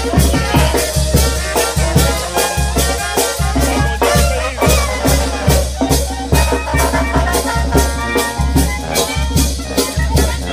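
Live brass band playing: a sousaphone bass line under trumpets, trombones and a clarinet, driven by a steady, quick drum beat of about three strokes a second.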